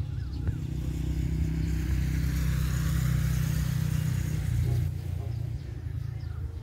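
A motor vehicle's engine running with a steady low hum, swelling as it passes from about two seconds in and dropping away just before five seconds.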